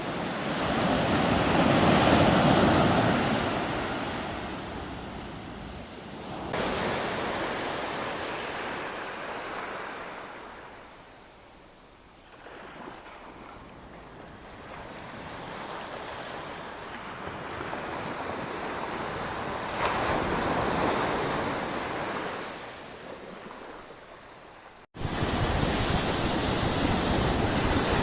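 Sea surf breaking on a beach, the wash swelling and fading in slow surges every several seconds. It breaks off for an instant near the end, then resumes more evenly.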